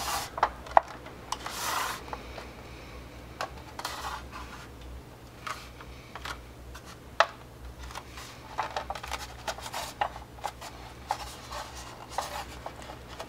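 Styrene hull parts of a Das Werk 1/72 U9 U-boat kit rubbing and clicking against each other as they are handled and pressed together dry, with scattered sharp snaps as the parts connect. A short rubbing scrape comes about two seconds in and a louder click about seven seconds in.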